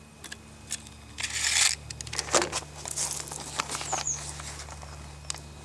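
Close handling noise: scattered clicks and rustling, with a short scraping hiss about a second in as things are moved by hand. A brief high chirp sounds near four seconds, over a steady low hum.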